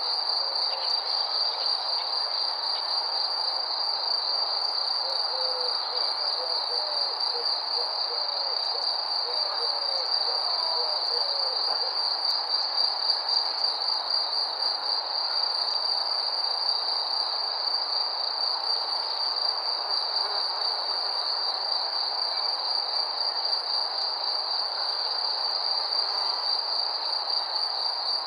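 Crickets chirping in a continuous chorus, a steady high-pitched trill of rapid pulses that never lets up, over a soft background hiss.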